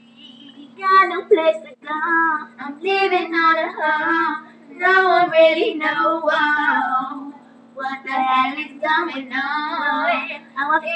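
Young teenage girls singing a song in phrases with short breaths between them, over a steady low hum.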